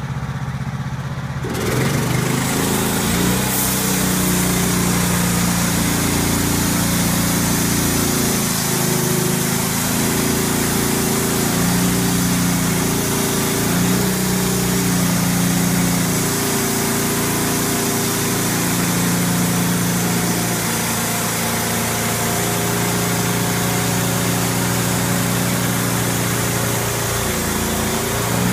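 Norwood portable band sawmill cutting a black walnut log: its engine runs under load, its pitch wavering, with the steady hiss of the band blade in the wood. About a second and a half in, the sound jumps louder and the hiss sets in.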